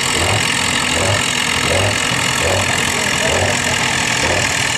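Antique pulling tractor's engine running under load as it drags a weight-transfer sled, with a regular pulse a little over once a second. The announcer calls it a little stutter, though it still pulls hard at the bottom end.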